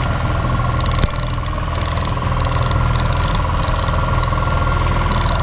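Boat engine running steadily with a low hum and a constant whine, over water wash. Short bursts of light ticking come and go from the baitcasting reel as the hooked fish is reeled in, with a single knock about a second in.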